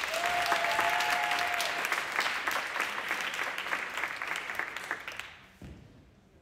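A small audience clapping steadily, with one long held call over the first second or so. The applause thins out and dies away near the end.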